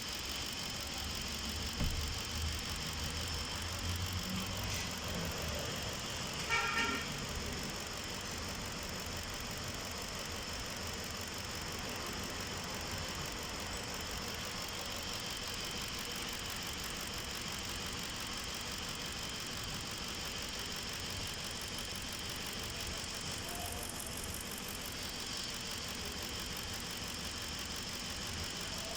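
Ford Expedition engine running steadily at idle, still misfiring. A short high tone sounds once, about six and a half seconds in.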